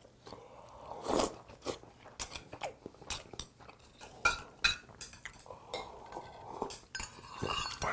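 Close-up eating sounds: a metal spoon clinking against a small metal bowl of rice in fish soup, with chewing in between.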